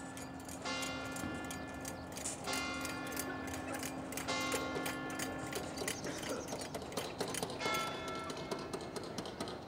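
Church bell tolling: about five slow strokes, roughly one every two seconds, each left to ring on, as when the bells chime the hour.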